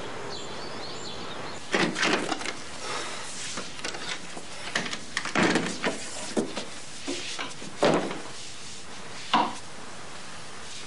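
A wardrobe door and clothes being handled: a handful of separate short knocks and rustles spread across the stretch, over a steady low hiss.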